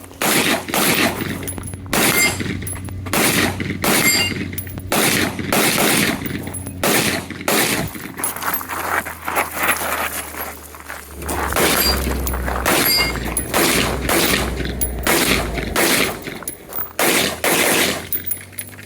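Rifle fired in quick strings during a timed stage, several shots a second with brief pauses between strings as the shooter moves between targets.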